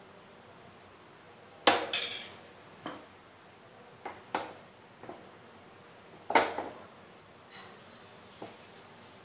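Metal clatter of a non-stick frying pan and a steel ladle knocking against a gas stove's pan support as the pan is lifted and tilted to spread batter: a handful of sharp clanks, loudest about two seconds in and again past six seconds.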